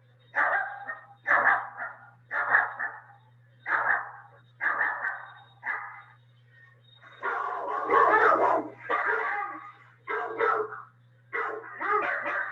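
A dog barking repeatedly, about one bark a second, with a longer, denser run of barking about seven seconds in.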